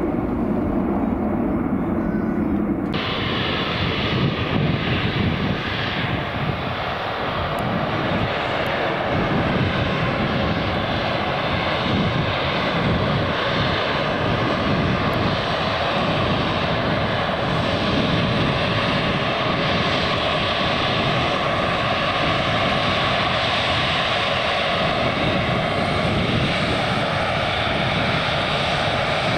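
Departing airliner's engines at high power, a steady loud rush of engine noise. About three seconds in the sound changes abruptly from a duller rumble to a fuller, brighter noise that then holds steady.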